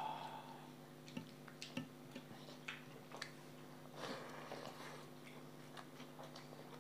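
Eating rice by hand: scattered soft clicks and smacks of chewing, with a brief rustle about four seconds in as a handful goes into the mouth, over a faint steady hum.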